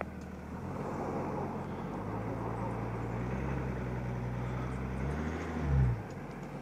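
2020 GMC Sierra's 3.0-litre Duramax inline-six turbodiesel pulling the truck through offset ruts. It revs up about two seconds in as a lifted wheel spins, then climbs higher near the end and drops off suddenly as the G80 automatic locking differential engages and sends power to the other wheel.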